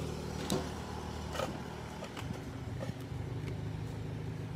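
Car engine idling with a steady low hum, with a few faint light clicks over it.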